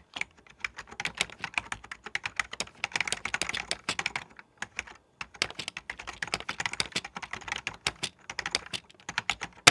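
Rapid typing on a vintage Apple mechanical keyboard from a Macintosh SE/30: quick key clacks in two runs with a short pause between them, and one sharp click near the end.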